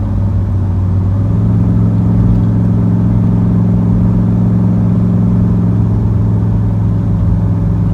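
Chevrolet Camaro Z28's V8 engine running at steady revs, a constant low drone that wavers briefly in the first second.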